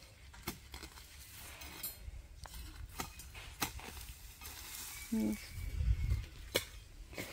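A hoe scraping and knocking at soil and cut grass, a few scattered strikes spread out over several seconds. A brief spoken word comes a little past five seconds, with a low rumble just after it.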